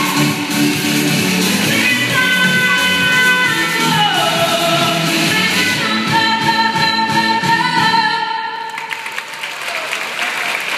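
A woman singing a pop song into a microphone over an instrumental backing, holding a long note near the end; the music stops about eight and a half seconds in and audience applause follows.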